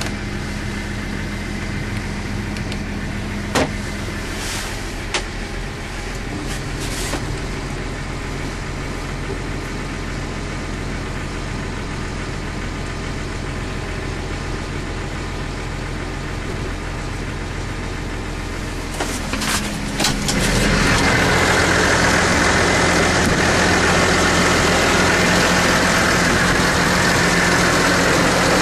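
Case IH Puma 155 tractor's 6.7-litre six-cylinder diesel idling steadily, heard from inside the cab, with two sharp clicks in the first few seconds. About twenty seconds in the engine becomes much louder and hissier, as heard outside the cab with wind on the microphone.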